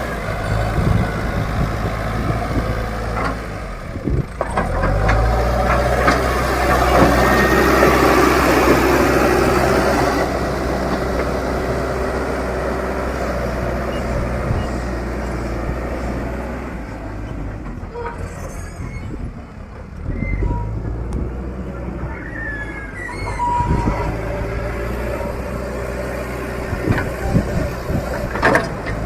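Leyland Deere 435 backhoe loader's diesel engine running under work. Its note rises about five seconds in, stays loudest for a few seconds, then eases back to a steady run. A few short high chirps come past the middle.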